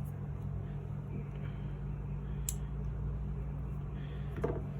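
Steady low hum, with one light click about halfway through as small parts of an airsoft pistol's trigger assembly are handled.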